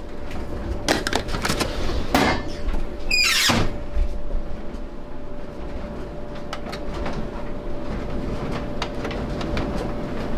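Door and handling noises: clicks and knocks, and a loud squeak about three seconds in that falls quickly in pitch, over a faint steady hum.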